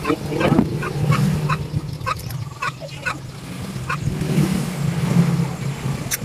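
Small generator engine running with an uneven, wavering hum, and scattered sharp clicks or taps over it.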